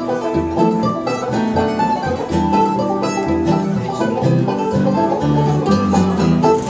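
Live bluegrass band playing: strummed acoustic guitar, a small picked string instrument and plucked upright double bass.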